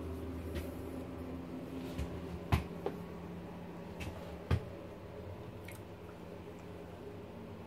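Steady low hum in a small room, with a few sharp knocks, the loudest about two and a half and four and a half seconds in.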